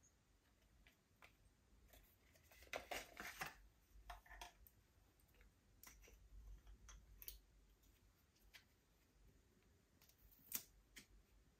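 Faint handling sounds of a plastic tube of fake blood and its cardboard box: a short spell of rustling and crackling a few seconds in, scattered small clicks and taps, and one sharp click near the end as the tube's cap is worked open.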